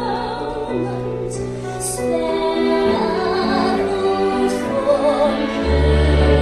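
Female soprano singing an operatic ballad line with vibrato over orchestral accompaniment. Near the end a deep bass swell comes in beneath the orchestra.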